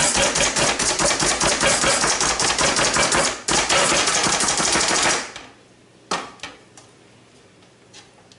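Hand-operated plunger food chopper (Slap Chop type) pumped rapidly, its blades clacking down through pickle slices on a cutting board in a fast, even run of strokes. The run breaks briefly about three and a half seconds in, stops a little after five seconds, and is followed by a couple of single clacks.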